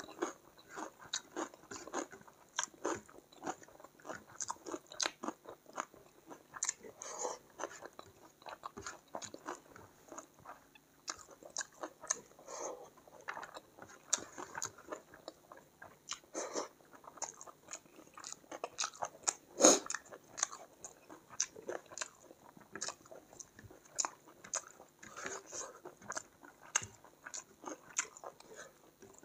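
Close-miked eating: chewing and crunching with many short wet clicks, while fingers mix rice and curry in a foam tray. One louder crack comes about twenty seconds in.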